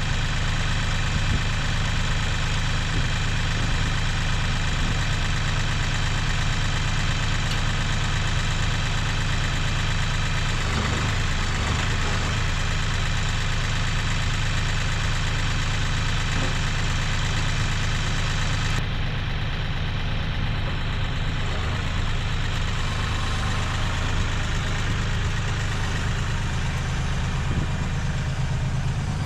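Compact tractor engine idling steadily.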